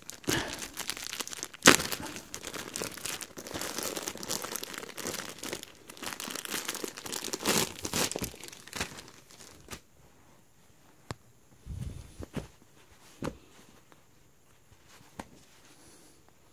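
Thin clear plastic packaging bag being torn open and crinkled by hand, with one sharp snap about two seconds in. The crinkling stops about ten seconds in, leaving only a few faint knocks and rustles.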